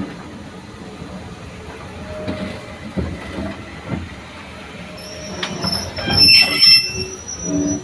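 Railway coach wheels squealing against the rails over the rumble of a slow-moving train, with a few knocks from the track. The high-pitched squeal sets in about five seconds in and is loudest around six to seven seconds.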